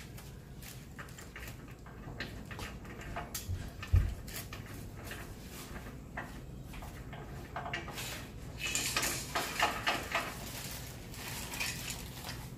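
Small metal hardware and a hex key clinking and tapping against a bandsaw's metal table while parts are fitted by hand. There is a dull thump about four seconds in, and a busier run of clinks a little past the middle.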